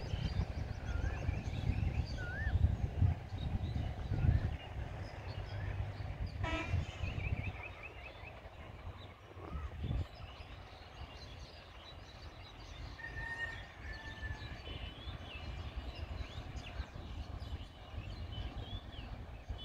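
Birds chirping and calling over a low rumble that dies down about eight seconds in, leaving quieter background noise with the birdsong.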